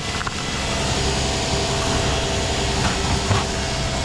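Steady engine and road rumble heard from inside a moving car's cabin, with a faint steady hum and a few small knocks.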